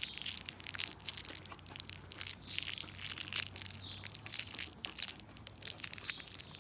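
Cellophane peppermint wrapper crinkling and tearing as it is worked open one-handed, a dense run of quick irregular crackles.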